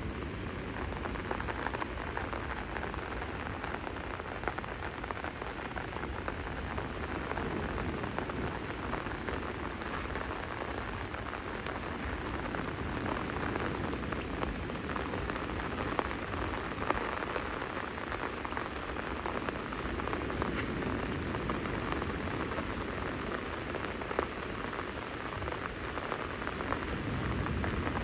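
Storm rain falling steadily and splashing on the ground, with scattered sharper drop impacts standing out.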